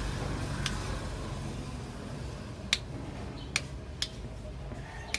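A handful of sharp, separate clicks, most of them in the second half, from a laminator's small switch being worked by hand while it is tested, over a steady low hum.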